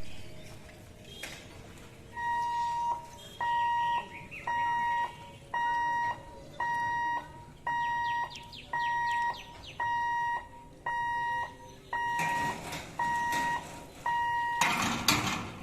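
Electronic level-crossing warning alarm beeping: a steady pure tone repeated about twelve times, roughly once a second, each beep most of a second long, starting about two seconds in. A loud, brief noisy burst comes near the end.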